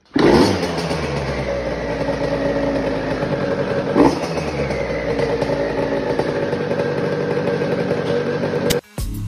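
KTM 50 SX Mini's small two-stroke engine catches and idles steadily, with one brief louder blip about four seconds in. It cuts off suddenly near the end.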